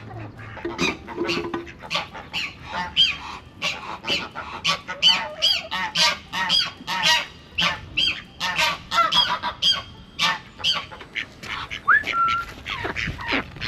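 Domestic ducks quacking loudly in a rapid, continuous run of short calls, with one higher, drawn-out call near the end.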